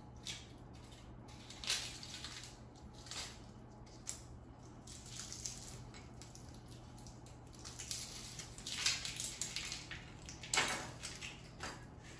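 Dry onion skin crackling and rustling as an onion is peeled by hand with a small knife, in scattered short crinkles and scrapes that grow busier later on, with a sharper click near the end. A steady low hum runs underneath.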